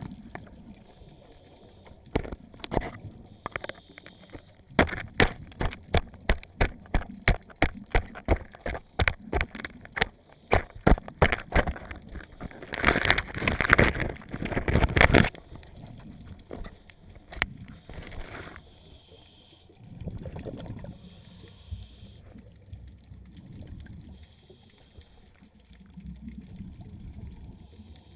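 Heard underwater, a metal tool knocking and crunching into Centrostephanus (long-spined) sea urchins on rock: a run of sharp knocks about two a second, then a louder stretch of dense crunching about halfway through as the tool is pushed into an urchin, followed by softer sloshing water.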